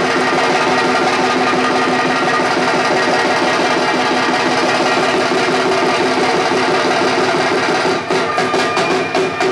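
Punjabi bhangra folk music for a stage dance: a dense, steady instrumental melody over a fast beat. About eight seconds in, the melody drops back and a run of sharp percussive strikes comes through.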